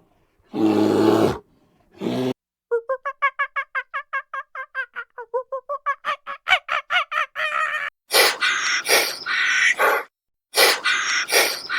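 Wild animal calls. A short rough roar-like call comes near the start, then a fast run of chirping calls at about six a second with a few clicks. Harsher, meow-like calls follow in the last few seconds.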